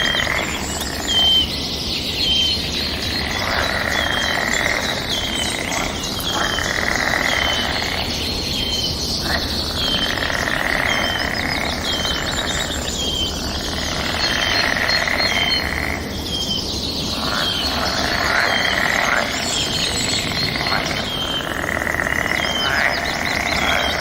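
A chorus of forest birds chirping and singing, many calls overlapping. A short high note repeats about once a second throughout.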